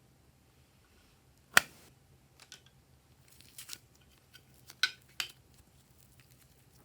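Glossy slime being pressed and worked by hand, giving a string of sharp clicks and pops from trapped air. The loudest comes about a second and a half in, and a few more follow over the next four seconds.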